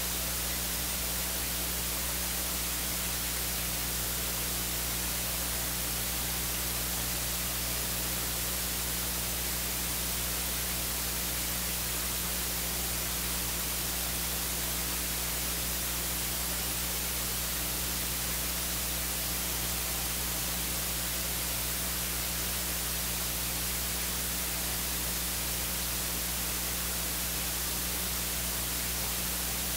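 Steady electronic hiss of static with a low hum beneath, unchanging throughout: the noise floor of the recording's audio feed, with no music or voices on it.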